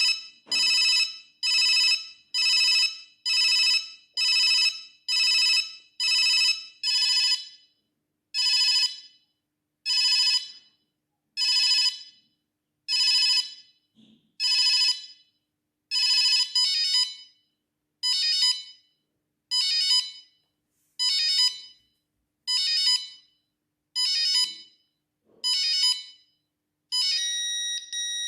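Siemens S6 mobile phone playing ringtones: a train of short, same-pitched electronic beeps. They start at a quick pace, slow to about one every second and a half from about eight seconds in, then quicken again with a doubled note from about sixteen seconds in. Near the end a different, steadier ringtone starts.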